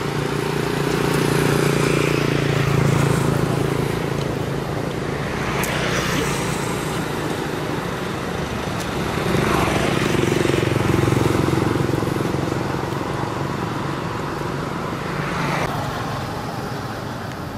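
Motor vehicles passing along the road: a steady engine hum that swells and fades twice.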